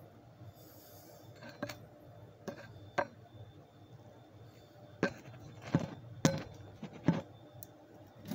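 A series of about eight light, sharp clicks and taps, irregularly spaced, from small hard objects being handled close by, such as a sunglasses frame being moved.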